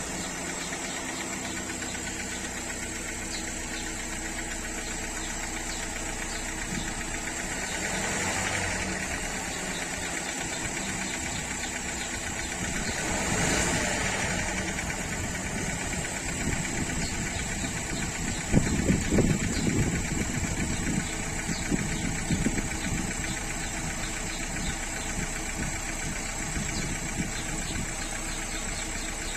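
Renault 1.3 TCe turbocharged four-cylinder petrol engine idling, blipped up in revs twice and back down. About two thirds of the way in comes a burst of irregular knocking and rattling. This is the noise on acceleration that the owner is trying to show.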